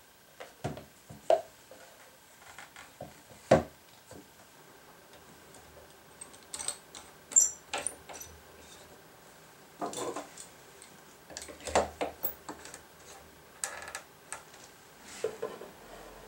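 Scattered knocks and clicks of a belt sander, a wooden jig and a clamp being handled and fitted together, with wood and metal tapping against each other at irregular moments.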